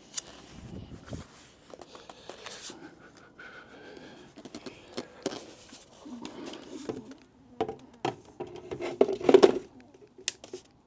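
Hands handling the e-bike and its battery: scattered clicks, scrapes and light knocks, with a cluster of louder knocks and rattles about nine seconds in.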